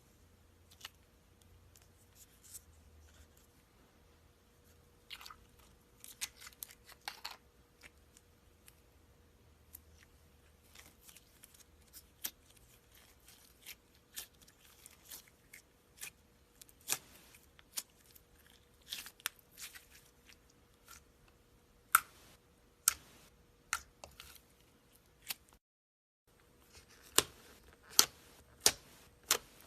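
Slime being pressed, stretched and kneaded by hand, giving irregular sticky clicks and pops that come thicker and louder toward the end. A faint steady hum runs underneath, and the sound cuts out completely for a moment near the end.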